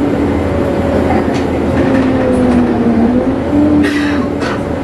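ADL Enviro 200MMC bus heard from inside the saloon while moving: the engine and driveline give a steady whine that sags a little in pitch and rises again. A couple of short knocks or rattles come about four seconds in.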